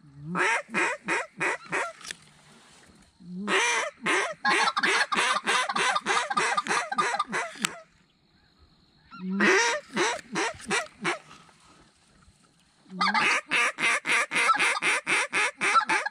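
A duck call blown in a series of hail-style runs: four loud strings of quacks, each opening with a longer drawn-out note and then going on in quicker, shorter quacks at about four to five a second.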